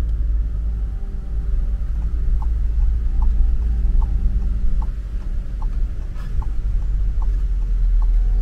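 Car cabin sound of a slow drive: a steady low engine and road rumble, with the turn indicator ticking evenly, two to three ticks a second, alternating tick and tock, as the car signals a turn.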